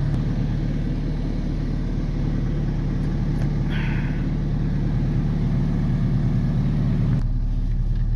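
Pickup truck engine idling steadily, with a short scrape of an ice scraper on glass about four seconds in. Near the end the outside hiss drops away and the idle is heard from inside the cab.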